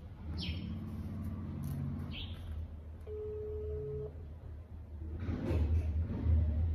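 Phone ringback tone through a phone's loudspeaker while the call rings out: one steady beep about a second long, about three seconds in. A bird chirps twice near the start, and a low rumble swells near the end.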